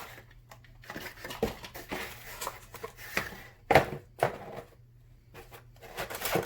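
Scattered light taps, clicks and rustles of hands handling pizza toppings and their packaging, with one sharper click a little under four seconds in.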